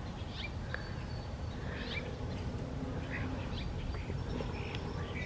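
Several birds giving short, scattered calls over a steady low rumble.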